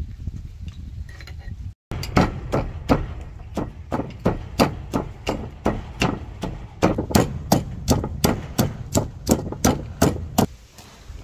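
Wooden pestle pounding in a heavy wooden mortar, about three strikes a second, crushing garlic, shallots and chilli. The strikes stop shortly before the end.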